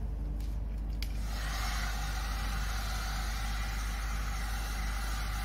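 Handheld heat gun switched on with a click about a second in, then blowing steadily with an even fan-and-air hiss while it dries freshly sprayed clear coat on a plastic car bumper.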